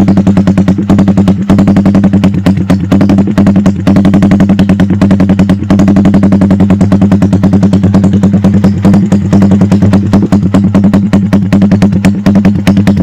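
Yamaha LC135 single-cylinder four-stroke engine, bored up to 63 mm, running at a steady idle through a GL Racing Super Open big-cork open exhaust: a loud stream of fast, even exhaust pulses with a deep steady tone. The sound is very loud and shrill ('bingit').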